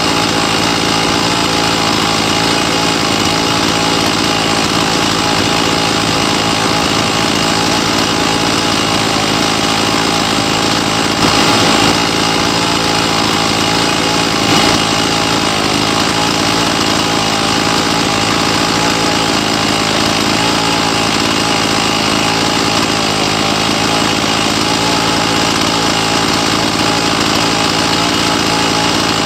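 Chainsaw running continuously at a steady, nearly unchanging speed while cutting the corners off a wooden vase blank. There are two brief louder surges, about eleven and fourteen and a half seconds in.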